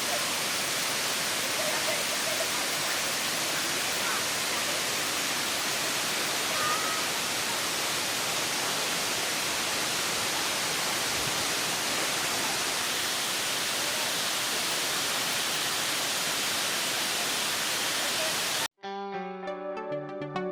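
Monsoon-swollen waterfall with a steady, loud rush of falling water, heavy flow over tiered rock. Near the end it cuts off abruptly and gentle keyboard background music takes over.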